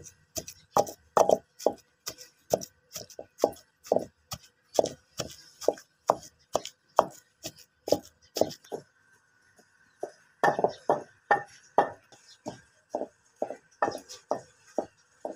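Long wooden pestle pounding fenugreek leaves and potato into a paste in a terracotta mortar: dull thuds about twice a second, pausing for a second or so about two-thirds of the way through, then resuming.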